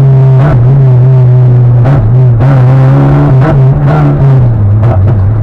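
Rally car engine heard loud from inside the cabin, running hard at a steady pitch with short breaks in the note every second or so, then dropping to a lower pitch near the end.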